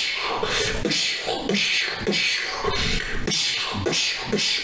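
A man making fight sound effects with his mouth: a rapid run of hissing, puffing punch and impact noises, about two a second.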